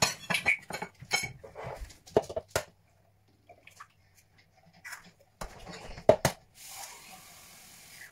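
Eggs tapped and cracked open over a ceramic bowl: a quick run of sharp taps and clicks, a pause, then a few more knocks, with a soft hiss near the end.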